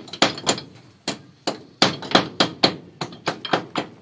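Steel claw hammer striking a concrete wall in a quick, uneven run of sharp blows, about three a second, chipping the surface flat to seat a pig drinker.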